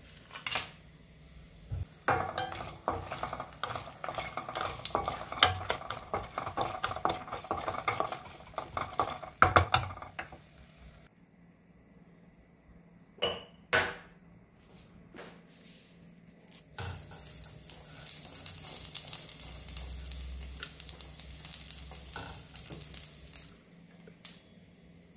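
Mustard seeds and dal crackling and sizzling in hot oil in a steel pan, with a spoon stirring and clinking against the pan. After about ten seconds the sound drops away to a few sharp knocks, then a steady high hiss.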